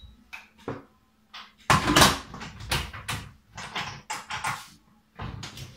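Metal lid of an electric pressure cooker being set on and twisted shut: a series of clanks and clicks, the loudest about two seconds in.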